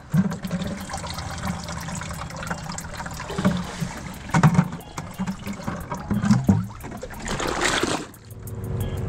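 Shallow seawater sloshing and dripping around a rock lifted out by hand, with a few small knocks, then a louder splash near the end as the rock goes back into the water.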